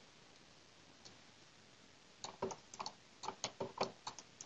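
Near silence, then from about two seconds in a quick, irregular run of light clicks, roughly five a second, from a computer mouse and keyboard being worked.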